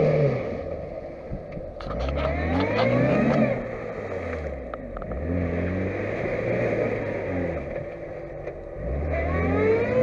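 Lada Niva 4x4's four-cylinder petrol engine revving hard in repeated rising surges as it tries to climb out of a muddy stream, wheels spinning in the mud. A few sharp clacks sound about two seconds in and again around five seconds.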